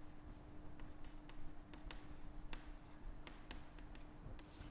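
Chalk writing on a blackboard: irregular light taps and clicks as the chalk strikes the board, over a faint steady hum.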